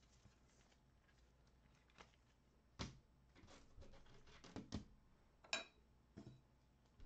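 Near silence broken by a handful of short, sharp clicks and light rustles: trading cards being handled by gloved hands.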